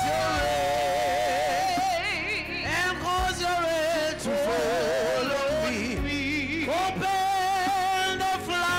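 Gospel worship song: a woman sings long, wavering held notes and runs into a microphone over instrumental accompaniment.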